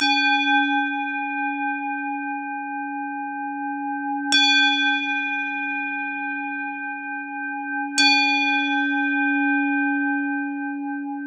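A metal singing bowl struck three times, about four seconds apart, each strike ringing on with a long, slowly fading, wavering tone that overlaps the next.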